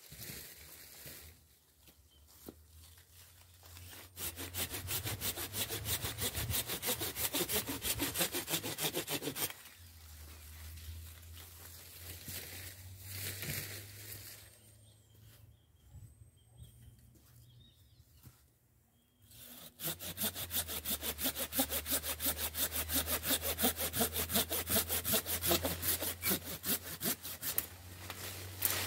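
Hand pruning saw cutting through an orange-tree branch in quick back-and-forth strokes. There are two long runs of sawing, starting about four seconds in and again about two-thirds of the way through, with a quieter pause between them.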